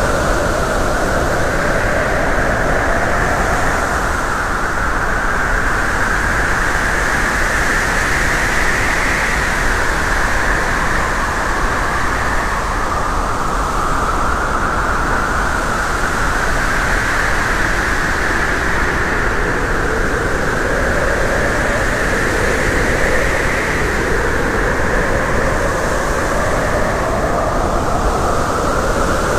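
Steady, loud rushing noise of a moving vehicle, with a hiss whose pitch slowly sweeps up and down.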